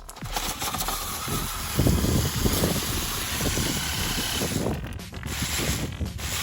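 Electric RC car driving over rough ground, its tyres scrabbling and crunching with a rattly, noisy rumble that is loudest from about two to five seconds in.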